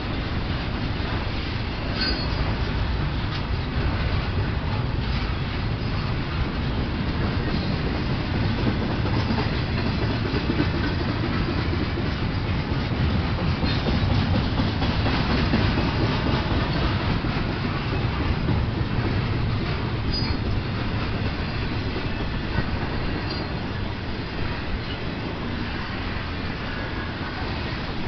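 Freight train of double-stack container well cars rolling past at close range: a continuous loud rumble of steel wheels on rail, with wheels clacking over rail joints and a few brief high-pitched wheel squeaks.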